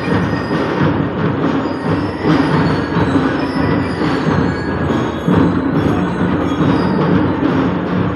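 A drum and lyre corps playing: drums with bell lyres, loud and continuous.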